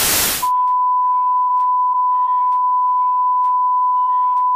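Loud TV static that cuts off about half a second in, then a steady, unbroken test-tone beep, the 'please stand by' technical-difficulties signal, with faint music underneath.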